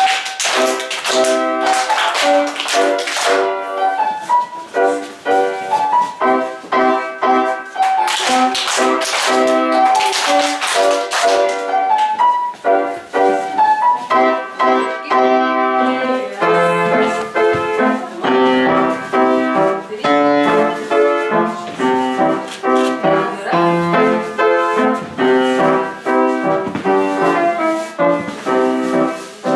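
Upright piano playing a lively dance tune in a steady rhythm.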